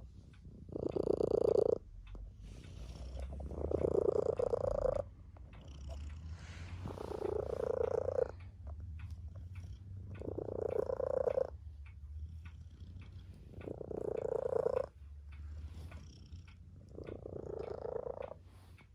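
Tabby cat purring close up, in a steady breathing cycle: the purr swells louder six times, about every three and a half seconds, and drops back quieter in between.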